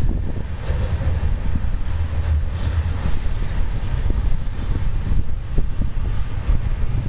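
Freight train's tank cars and boxcars rolling past, a steady low rumble of steel wheels on the rails with a few faint knocks.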